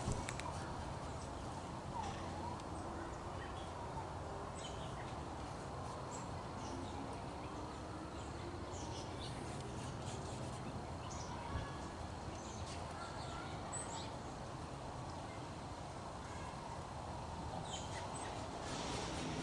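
Outdoor background noise: a steady low hum with scattered faint bird chirps.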